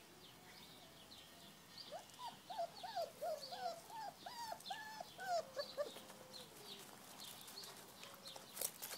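Vizsla puppies whimpering while nursing: a quick run of high, arched squeals from about two seconds in, fading out after a few seconds, over faint bird chirps.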